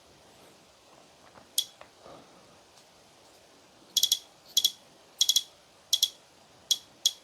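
DJI Osmo Action 5 Pro action camera beeping as its buttons are pressed to set the date and time: one short high beep about one and a half seconds in, then a run of short high beeps, several of them doubled, about every two-thirds of a second from about four seconds in. The beeps are very loud.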